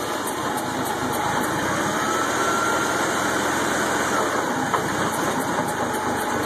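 Toyota forklift's engine running steadily under load, with a faint rising whine about a second and a half in.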